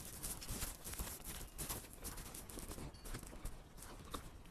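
Faint chewing of a bite of chicken pizza, with irregular small mouth clicks and smacks.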